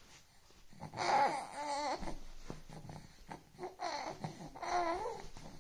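Young infant cooing and babbling in two short bouts, one about a second in and another around four seconds in, the pitch wavering up and down.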